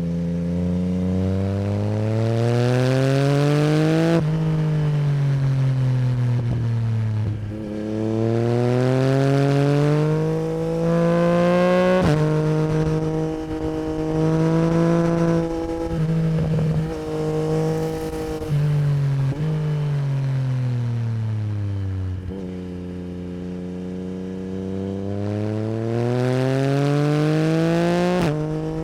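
Yamaha MT-09 SP's crossplane three-cylinder engine through an Akrapovic Racing Line exhaust, pulling up through the gears: the pitch climbs and drops sharply at each upshift, about four, seven and a half and twelve seconds in. It then holds its revs with brief throttle closes, winds down, and pulls up again near the end.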